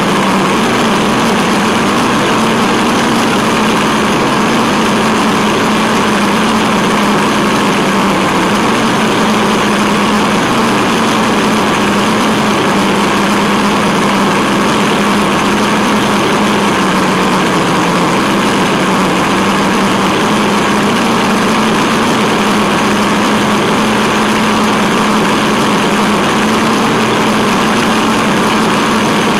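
Tamiya Wild Willy 2 radio-control truck driving, picked up by a camera mounted on the truck: the electric drivetrain gives a steady whine whose pitch shifts only slightly, over an even, rough running noise.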